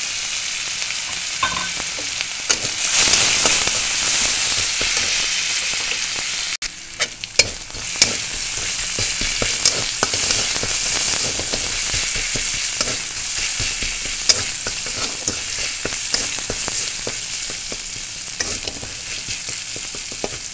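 Crushed garlic and green chilli sizzling in hot mustard oil in a metal kadai, stirred with a spatula. The sizzle is steady and loudest a few seconds in, with sharp scrapes and taps of the spatula against the pan at intervals.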